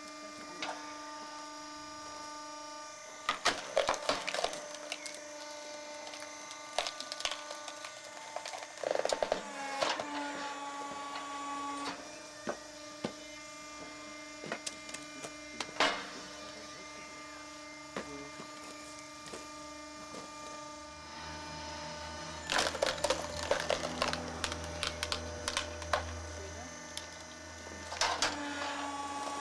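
Small vertical log splitter's motor and hydraulic pump humming steadily, with several bursts of cracking and splintering as logs split under the ram, and split pieces knocking together.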